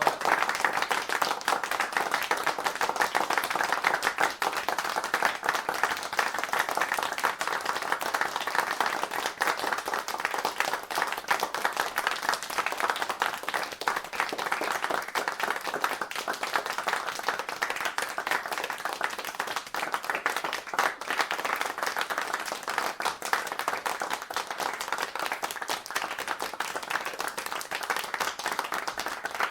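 A group of people applauding, many hands clapping at once in a dense, steady stream of claps.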